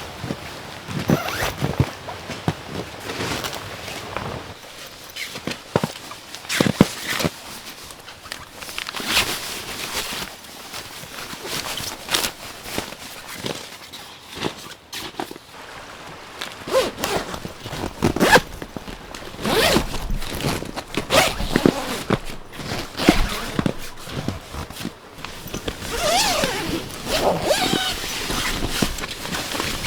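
Zippers being pulled open and shut in repeated rasping strokes, mixed with fabric and gear rustling, as camping gear or a tent is handled.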